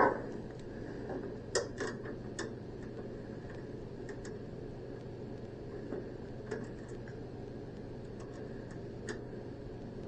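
Small, irregular clicks and taps of screws being started by hand into a panel, with a faint steady hum underneath.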